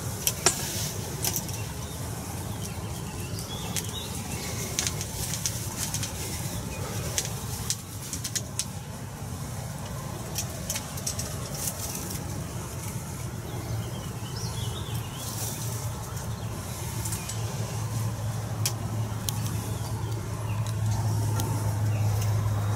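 A low steady engine-like hum that grows louder over the second half, with scattered faint clicks.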